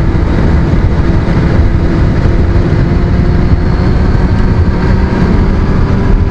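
1998 Yamaha YZF600R Thundercat's inline-four engine running at a steady cruise, mixed with heavy wind rush on a helmet-mounted camera. The engine note creeps slightly higher in the second half.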